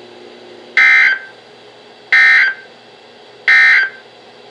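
Emergency Alert System End Of Message code on NOAA Weather Radio: three short, high-pitched, warbling digital data bursts a little over a second apart, signalling the end of the warning. A faint steady hum from the receiver lies underneath.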